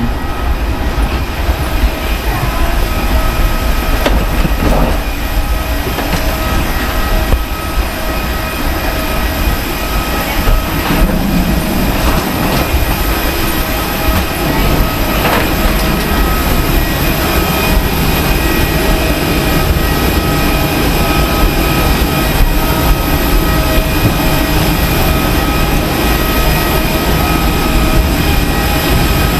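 Steady low rumble with a constant high whine from the machinery around a parked Airbus A321 airliner at its jet-bridge door.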